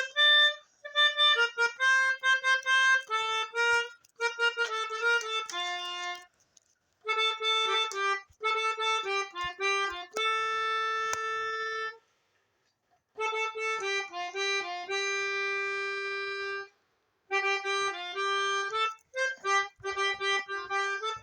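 Basuri telolet multi-tone bus horn playing melodic phrases of quick and held notes. It stops briefly about six, twelve and seventeen seconds in.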